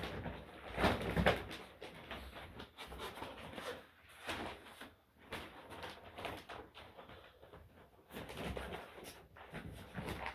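Handling noises of firework cake boxes being moved about: irregular knocks, bumps and cardboard rustling, with heavy breathing.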